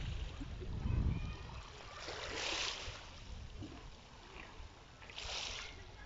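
Small waves lapping on a pebble shore, with two soft washes about two and a half and five seconds in. A low rumble of wind on the microphone is heard in the first second or so.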